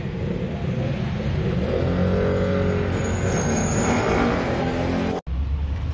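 Street traffic: a car engine running and accelerating past over a steady low rumble. The sound drops out for an instant near the end.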